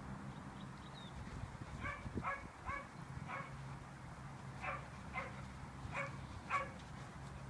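A dog whimpering in short, high yips: about eight in all, a run of four starting about two seconds in and another four a little later. A steady low hum lies underneath.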